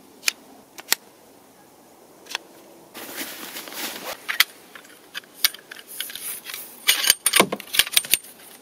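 Ultralight camping cot being assembled: a few sharp clicks of its poles and leg fittings snapping together, a stretch of nylon fabric rustling about three seconds in, then a quick run of clicks and light clatter as the poles are handled.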